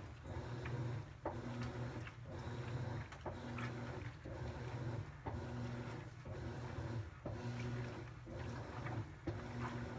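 Top-load impeller washing machine in its wash stage, agitating: the motor hums in short strokes that reverse about once a second, with a knock at each change of direction.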